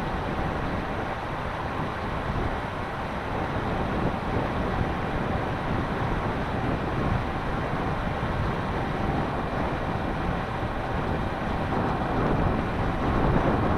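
Wind rumbling over an outdoor microphone, steady throughout, with a faint steady high whine underneath.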